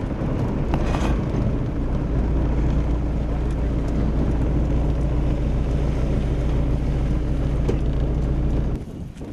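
Moving car's engine and road noise heard from inside the car: a steady low drone that cuts off suddenly near the end.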